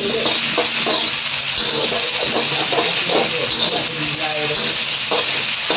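Pounded spice paste sizzling steadily in hot oil in a wok, with a spatula scraping as it is stirred.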